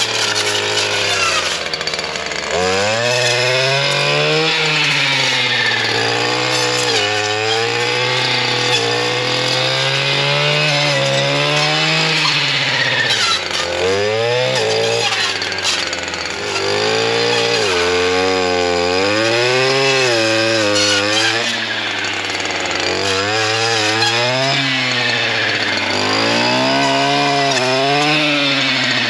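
STIHL FS 240R brush cutter's two-stroke engine running near full throttle while its 9-inch Forester chainsaw-tooth blade cuts through brush and branches. The engine pitch sags and climbs again many times as the blade bites into wood and comes free.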